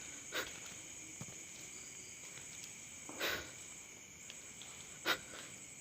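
Crickets or other night insects keep up a steady, high-pitched chirring. Three short, sharp scuffs or knocks cut in over it, one early, a longer one near the middle and one near the end.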